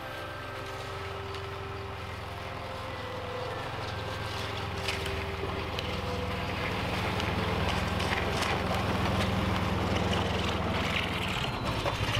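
Snowmobile engine running steadily and growing louder as it draws nearer.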